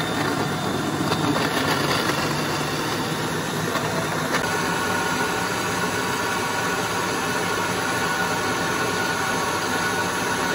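Electric countertop blender running steadily, puréeing pineapple, white radish and candlenuts with cold water into juice.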